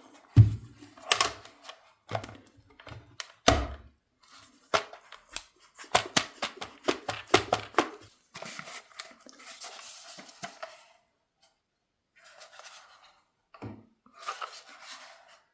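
Irregular clicks, knocks and thuds of hard plastic items and packaging being handled, with a stretch of softer rustling in the middle.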